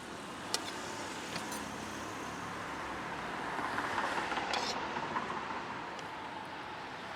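Street traffic: a vehicle passes, growing louder about halfway through and then fading, with a few light clicks over it.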